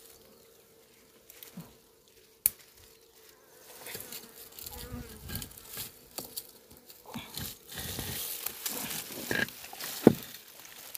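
A wild honeybee colony buzzing in its rock-crevice nest as the covering stones are lifted off, with rustling of dry leaves and twigs. A sharp click comes about two and a half seconds in and a louder knock of stone near the end.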